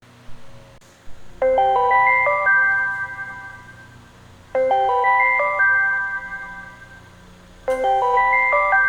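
Galaxy S9 phone ringtone: a short melody of clear notes, mostly climbing in pitch, played three times about three seconds apart, each phrase ringing out and fading.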